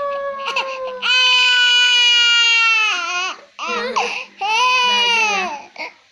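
A small child wailing in long, drawn-out cries, then breaking into shorter, sobbing cries about three seconds in: crying in fright at a strange sound.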